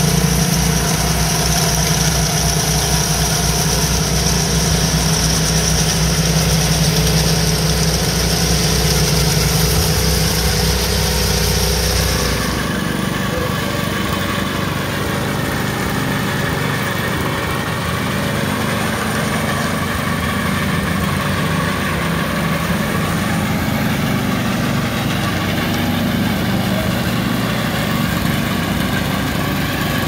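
Small gasoline engines of walk-behind concrete power trowels running steadily. About twelve seconds in the sound changes suddenly from one engine close by, with a deep hum and a high whine, to several trowels running together farther off.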